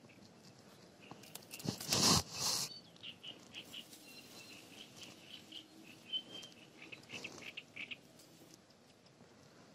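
Close rustling of clothing and hands about two seconds in, the loudest sound, followed by a small bird in the reeds giving a string of short, high chirps for several seconds.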